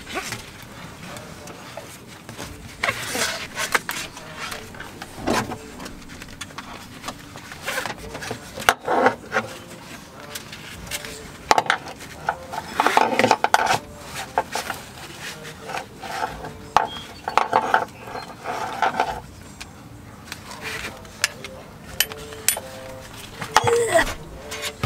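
Hands fitting a racing harness: nylon webbing rubbing and sliding, with metal buckles and mounting hardware clicking, clinking and scraping irregularly against the car's bodywork.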